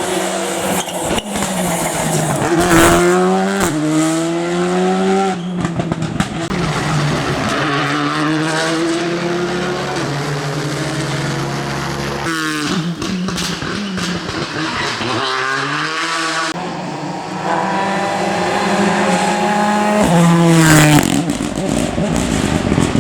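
Rally car engines accelerating hard through the gears, the pitch climbing and then dropping sharply at each shift, several times over as cars pass, with some tyre squeal.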